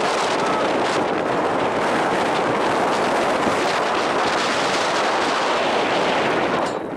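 Wind buffeting the camera microphone: a steady, rough, crackling rush that dips briefly at the very end.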